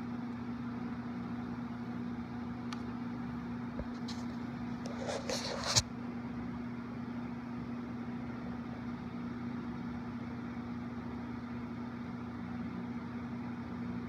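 Steady low electrical hum, with a brief short noise a little over five seconds in.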